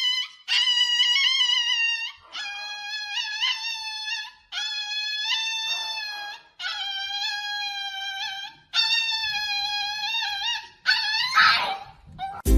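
A dog howling in a run of about six long, drawn-out howls at a similar pitch, each wavering slightly, with short breaks between them.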